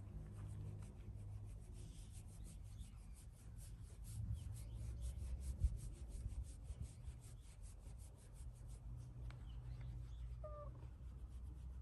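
A hand rubbing and scratching a cat's fur in quick, even strokes, about six a second, over a low steady rumble. The strokes stop about nine seconds in, and a brief high chirp follows near the end.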